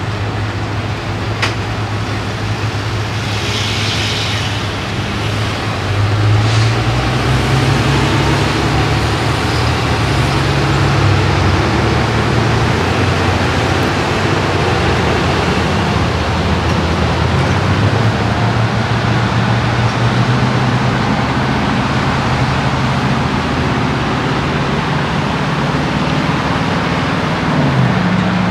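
A vehicle engine running as a steady low drone over a wash of road-like noise. It gets louder about six seconds in and holds there.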